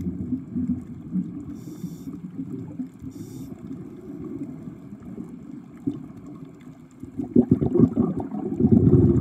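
Muffled underwater water noise, sloshing and gurgling, with two short hissing bursts in the first few seconds. A louder rush of water swells up near the end.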